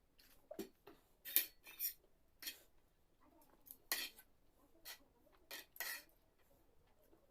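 Cutlery clinking against a dish: a series of short, irregularly spaced clinks and scrapes.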